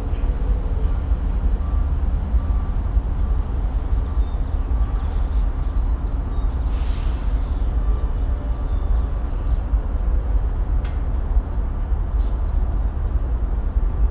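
Steady low rumble beside a standing BNSF double-stack container train, with faint steady tones above it. A short hiss comes about seven seconds in, and a few faint clicks follow later.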